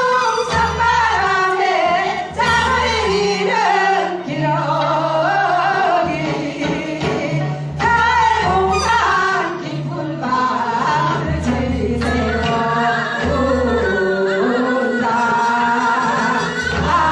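Music with singing: a voice carries a melody over accompaniment with a bass line moving in held notes.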